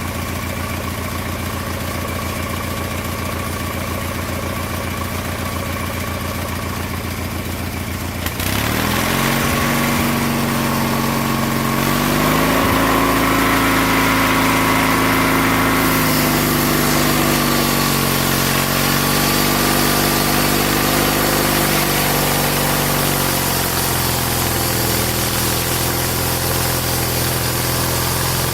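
Small lawn mower engine powering a homemade sawmill: it idles steadily, then about a third of the way in it is suddenly throttled up and runs faster and louder. Its pitch wavers for a while before it settles at the higher speed.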